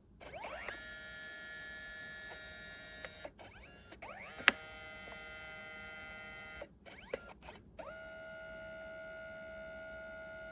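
Kodak Mini Shot 4PASS dye-sublimation photo printer running a print pass: its feed motor whines in steady pitched tones, rising in pitch each time it starts. It stops and restarts a few times with sharp clicks, the loudest click about four and a half seconds in.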